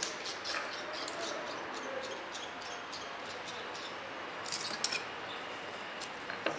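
Scattered light metallic clicks and clinks as a turned steel part is wiped and lifted out of a metal lathe's four-jaw chuck, over a steady hiss of shop noise; the sharpest two clicks come a little past halfway.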